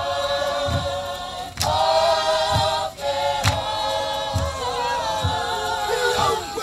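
Māori kapa haka group, men and women, singing together without words between lines, with a low thump keeping time about once a second.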